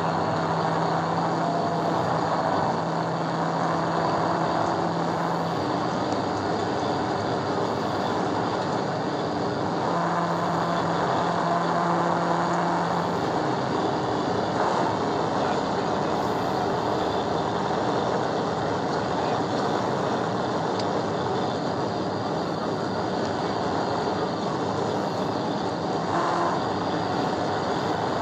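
Steady wind, tyre and engine noise of a Dodge police patrol car driving flat out at about 115 to 122 mph, heard inside the cabin. A low engine drone rises out of the noise for the first few seconds and again about ten seconds in.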